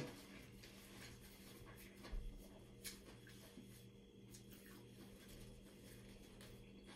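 Near silence: room tone with a faint steady hum and a couple of faint soft knocks about two to three seconds in.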